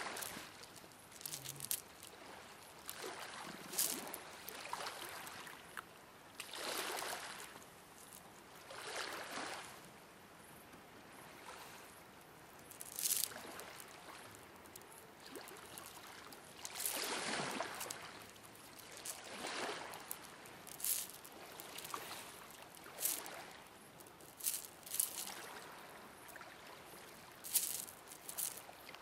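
Small waves lapping and washing on a rocky shore, swelling and fading every few seconds, with a few sharper splashes.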